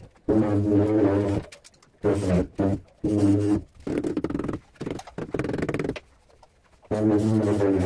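Handheld tile vibrator buzzing in on-off bursts of a second or two as it is worked over a large porcelain slab to bed it into the mortar.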